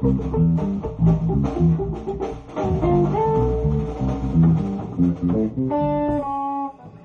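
Small rock band playing: electric guitar and bass guitar over a drum kit. A little before six seconds the low end and the hits drop out, leaving a few held guitar notes that stop near the end.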